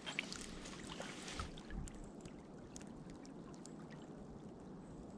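Faint water splashing and dripping from kayak paddle strokes, with the most splashes in the first second and a half, over a steady low wash of river water.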